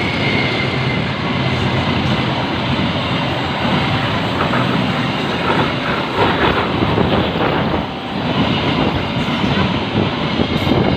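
Heavy vehicles passing close on a road: a loud, continuous rumble of engines and tyres, rougher from about four seconds in until about nine seconds in.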